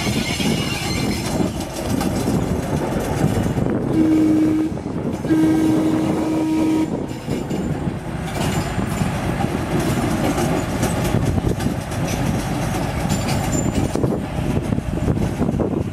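1948 GE 25-ton diesel locomotive running as it creeps along the track, its horn sounding twice about four seconds in: a short blast, then a longer one of about a second and a half.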